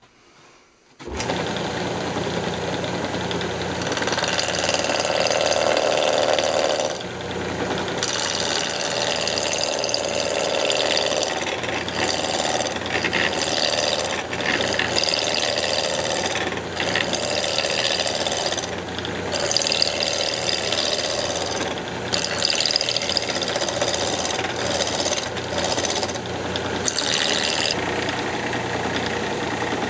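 Wood lathe starting about a second in, then a turning tool cutting down the corners of a square wood blank as it spins: a continuous rough, knocking cut that eases off briefly several times as the tool comes off the wood, the sound of truing the blank round.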